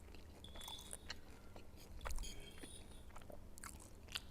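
Faint, close-miked chewing of a person eating noodles and soft-boiled egg, with scattered short mouth clicks.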